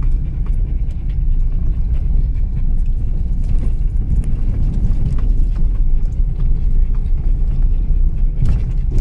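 Car driving over a rough dirt track: a steady low rumble of engine and tyres with scattered light knocks and rattles.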